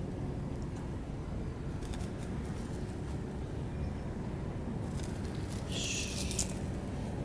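Small scissors snipping nylon bird netting: a few faint clicks about two seconds in and a louder, longer snip about six seconds in, over a steady low rumble.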